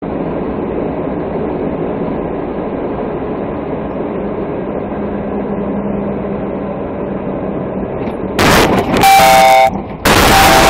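Steady engine and road noise inside a moving vehicle's cab. About eight seconds in, loud crashing and scraping break out as the vehicle leaves the road and mounts the kerb, with a vehicle horn sounding in between.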